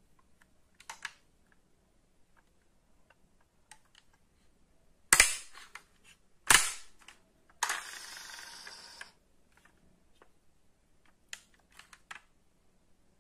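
Die-cast metal model car being handled: light clicks of its small opening parts, two loud sharp snaps about five and six and a half seconds in, then a harsh noise lasting about a second and a half.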